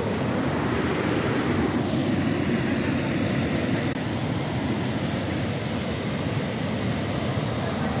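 Steady rushing and rumbling of a small waterfall cascading over rocks into a river pool.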